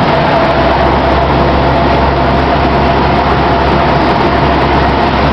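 Scania R620's V8 diesel heard from inside the cab while the truck drives, a steady low drone with road noise and a faint steady whine above it. The low drone strengthens slightly about half a second in.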